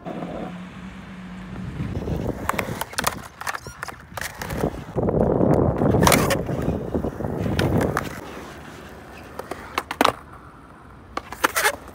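Skateboard wheels rolling on concrete, rumbling louder in the middle as the board rides up a small transition and back in fakie. Sharp clacks come as the trucks lock onto and unhook from the coping in an axle stall, and more clacks follow near the end.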